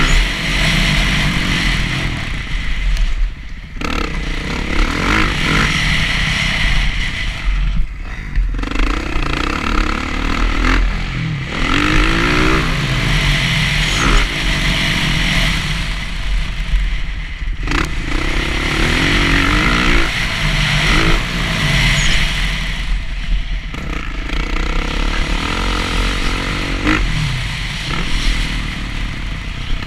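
Dirt bike engine ridden hard around a motocross track: the revs climb again and again and are cut off every few seconds as the throttle is chopped and opened for jumps, corners and shifts.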